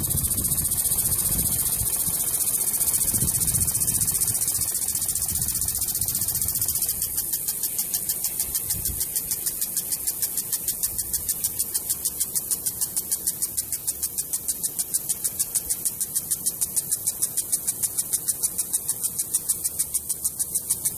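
Impact lawn sprinkler running: a hiss of spraying water, with a fast, even ticking of about five a second setting in some seven seconds in.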